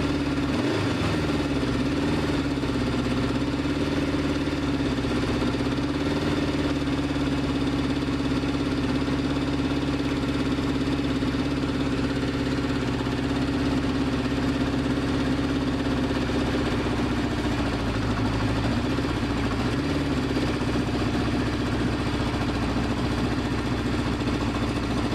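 1972 Honda CB500 Four's air-cooled inline-four engine idling steadily, warm for the first time after its rebuild, with small brief rises in revs near the start and again about three quarters of the way through.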